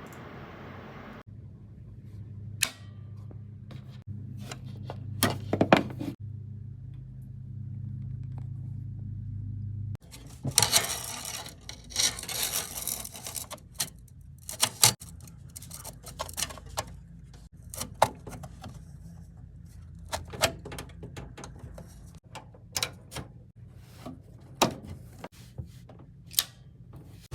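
Scattered sharp clicks and knocks of small hard parts being handled, over a steady low hum. A rustling hiss comes in about ten seconds in and lasts a few seconds.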